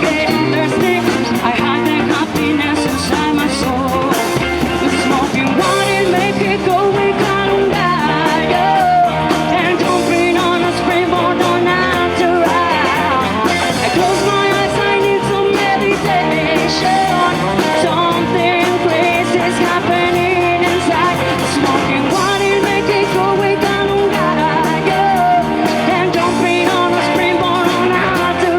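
Live rock band playing with a singer: electric guitar, bass and drums.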